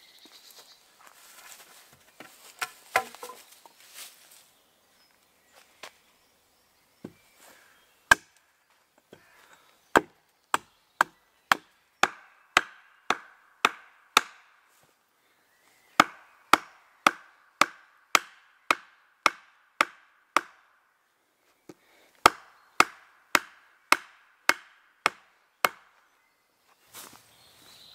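Small axe chopping wood: quick runs of sharp strikes, about two a second, each with a brief ring, in three bursts with short pauses between. Before the chopping starts, footsteps rustle through leaf litter.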